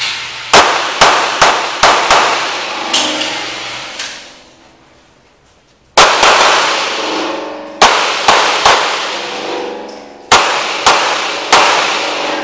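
Handgun shots fired in fast strings at an indoor range: five shots in the first two seconds, then after a pause of a couple of seconds about eight more. Each shot has a long echoing tail off the concrete walls.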